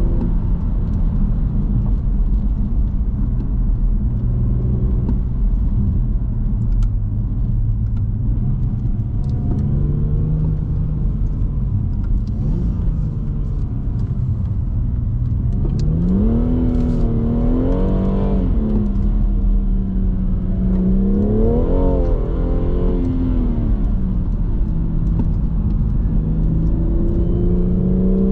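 BMW M240i's turbocharged 3.0-litre inline-six under way, heard from on board: a steady low drone at first, then two bursts of acceleration about halfway through where the engine note rises and falls, and the pitch climbs again near the end. Road and tyre rumble runs underneath.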